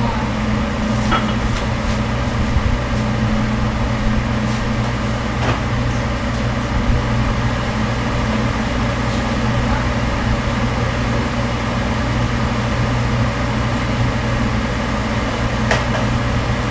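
Steady low electrical hum of a running fan or kitchen appliance, with a few faint clicks and knocks.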